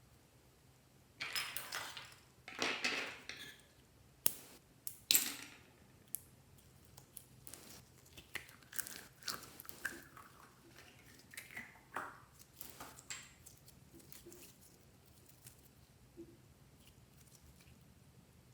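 Slime being mixed and squished by hand: sticky crackling and popping, a couple of sharp clicks about four to five seconds in, then softer scattered crackles that die away.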